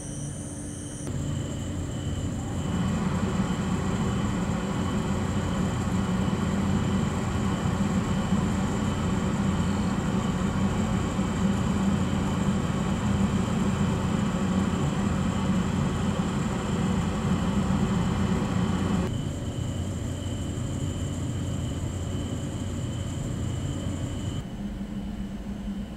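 Train noise: a steady mechanical hum with several fixed tones that steps louder about a second in and again about three seconds in, then drops back in two steps near the end.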